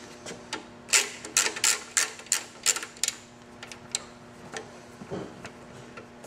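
Ratchet wrench with a 6 mm Allen socket on an extension clicking as it backs out a seat bolt. A run of sharp clicks comes about three a second, then thins out after the first few seconds.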